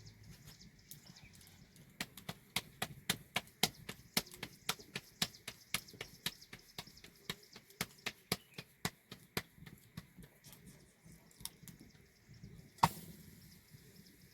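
A quick, regular run of sharp taps or knocks, about three to four a second, which thins out after several seconds, followed by one louder single knock near the end.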